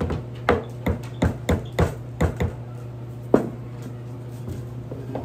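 Wooden mallet tapping on a stack of square wood blanks on a workbench: about eight quick knocks in the first two and a half seconds, then one sharper, louder knock about a second later.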